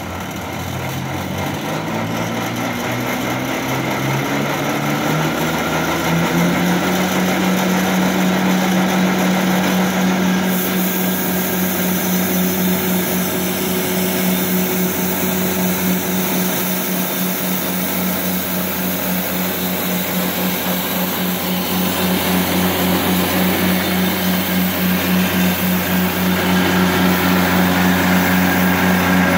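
Walker MD mower's Kubota D722 three-cylinder diesel engine, rising in pitch over the first six seconds, then running steadily at high speed while it drives the front rotary broom attachment.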